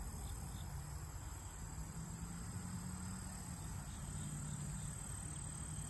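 Steady high-pitched insect chorus, unbroken throughout, over a low rumble.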